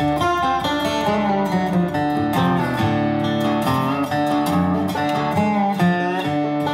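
Background music led by acoustic guitar, with quickly changing picked and strummed notes.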